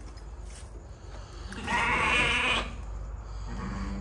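Billy goat bleating once, a quavering call about a second long.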